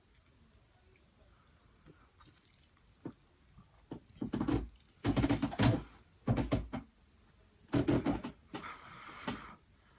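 A person eating spicy instant noodles close to the microphone: wet slurping and chewing in several loud, irregular bursts that start about four seconds in.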